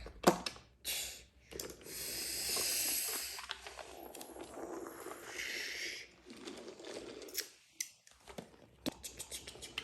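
Plastic toy train set being handled and played with: scattered sharp clicks and rattles, with a longer stretch of rustling from about two to six seconds in.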